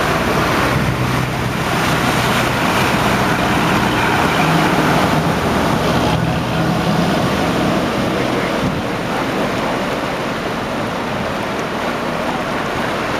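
A vehicle engine humming low under a steady rush of wind noise on the microphone.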